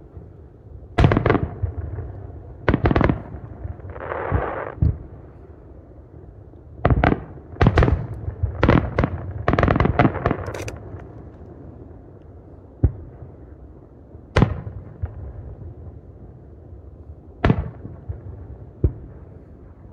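Aerial firework shells bursting: a run of sharp, irregular bangs, with a quick cluster of them from about seven to eleven seconds in. A short hiss comes about four seconds in.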